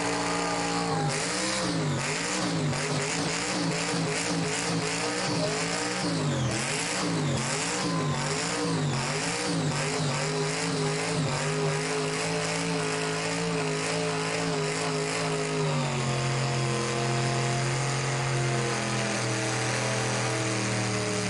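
A car engine is revved up and down repeatedly, about once a second. It is then held at a steady raised speed for several seconds before dropping back to a steady idle about three-quarters of the way through.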